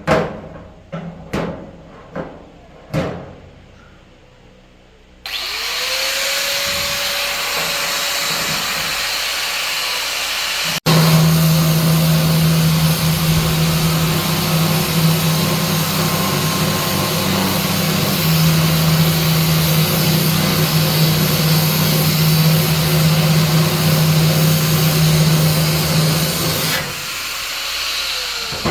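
A few sharp knocks on metal, then an electric power tool spins up and runs steadily with a loud hum and hiss. It winds down shortly before the end.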